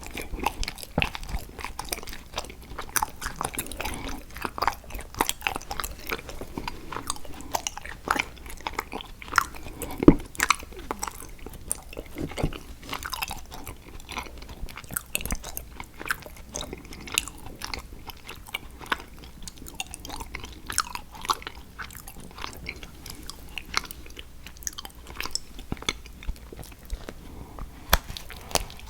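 Close-miked biting and chewing of a chocolate picture frame: crisp crunches and wet chewing clicks, with one loudest snap about ten seconds in.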